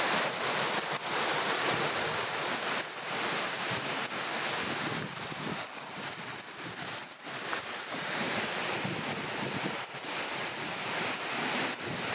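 Waterfall rushing: a steady, dense roar of falling water that swells and dips a little, with some wind buffeting the microphone.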